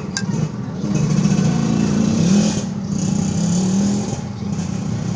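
An engine running steadily, its pitch rising and falling a little.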